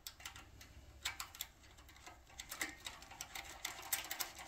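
Light, irregular metallic clicks and ticks of a small hand driver turning a nut back down onto a terminal stud inside a generator's wiring housing, the tool knocking against the metal stud and fittings.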